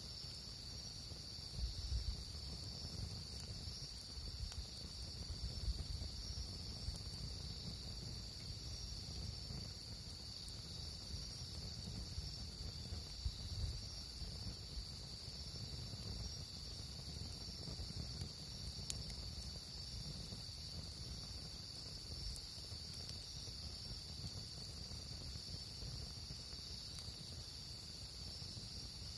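Crickets chirring in a steady, unbroken high-pitched chorus over a low rumble with a few soft bumps.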